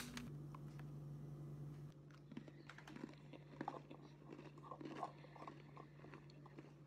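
A person chewing an Oreo cookie filled with mayonnaise: faint, irregular crunching and chewing that starts about two seconds in, over a steady low hum.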